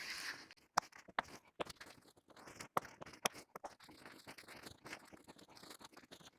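Faint rustling and scraping of a seat cover's upholstery material being worked over seat foam, with a few sharp clicks as its retainer clips are pushed in.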